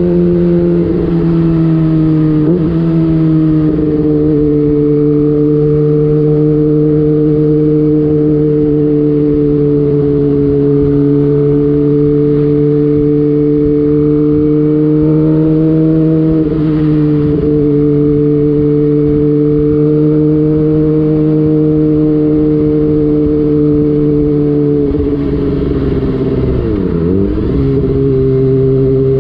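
Kawasaki ZX-25R 250 cc inline-four running through an aftermarket DX Generation Prorace exhaust with the dB killer removed, heard onboard while cruising at fairly steady revs. The pitch dips briefly a few times, and near the end the revs drop sharply and climb back.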